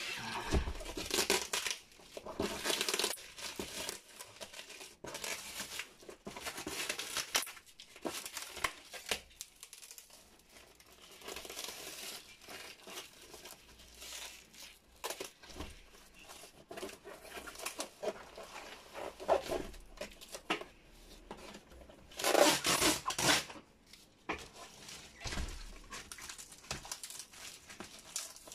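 Clear plastic wrap and packing tape being torn and peeled off a cardboard box, with crinkling plastic and rustling cardboard in irregular bursts. The loudest tear comes about three-quarters of the way through.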